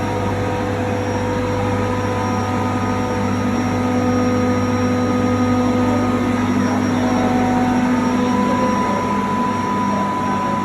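Screw-compressor refrigeration unit running steadily: a loud, constant machinery hum with several held tones, a higher whine coming up about eight seconds in.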